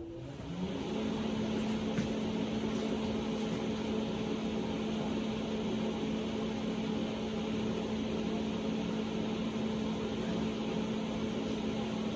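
An electric motor starting up, its pitch rising over about the first second, then running with a steady hum and a rushing noise.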